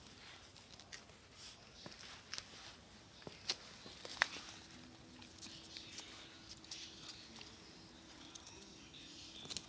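Puppies' paws pattering and claws clicking irregularly on hard ground, with a couple of sharper clicks about three and a half and four seconds in. A faint steady hum comes in about four seconds in.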